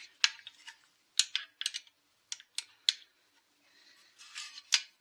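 Irregular sharp metallic clicks and taps as the muffler is unbolted from a Husqvarna 263 chainsaw, with a short scrape near the end.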